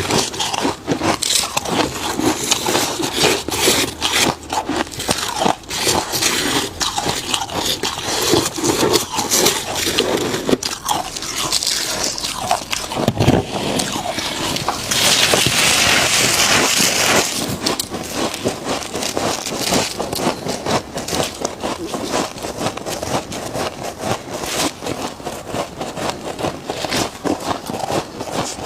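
Freezer frost being crunched and chewed in many quick, irregular crunches. About halfway through there is a steady scraping hiss lasting roughly two seconds.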